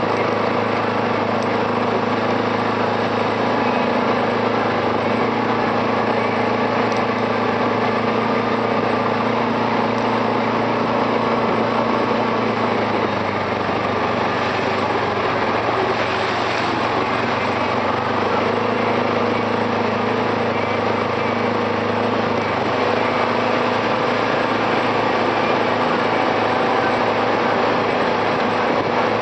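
Arctic Cat 700 TRV ATV's single-cylinder four-stroke engine running steadily while the quad is ridden along a trail, its note dipping slightly near the middle.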